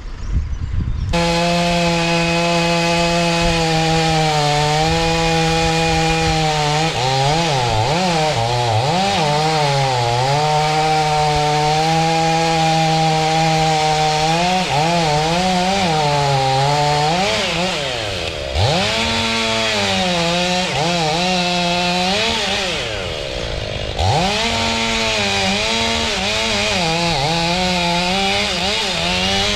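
Chainsaw running and cutting, its engine pitch repeatedly dipping under load and recovering, with two sharp deeper drops in the second half.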